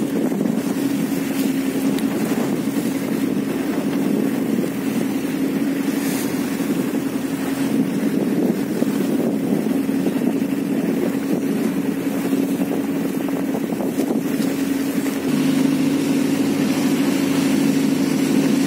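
Small tour boat's Mitsubishi engine running steadily under way, a constant hum, with wind on the microphone and water rushing past the hull. About fifteen seconds in the engine note changes: a lower hum joins in and the sound grows a little louder.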